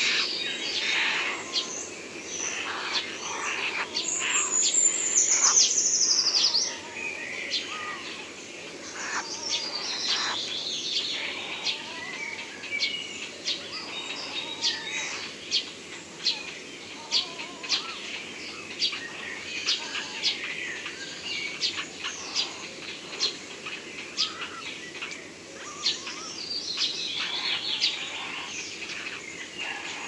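Wild birds calling: house sparrows chirping over and over, with woodland birdsong behind them. A fast descending trill about four seconds in is the loudest sound.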